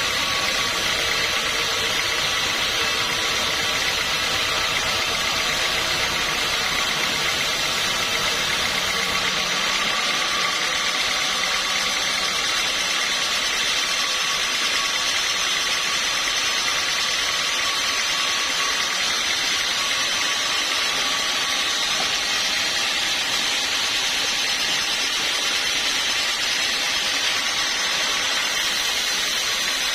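Machinery running steadily: an even mechanical drone with a constant hum. Its low rumble drops away about ten seconds in.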